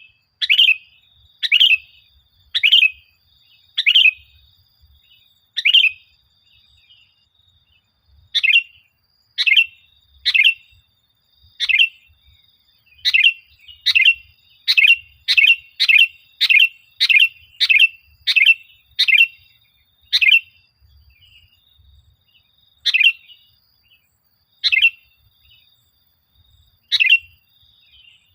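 Sooty-headed bulbul (kutilang) calling: a long string of short, sharp, high chirps. The notes come unevenly, speeding up to about two a second midway, then spacing out again.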